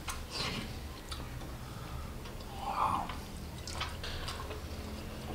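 People eating with spoons: chewing and wet mouth sounds, with a few light clicks of spoons, over a low steady hum.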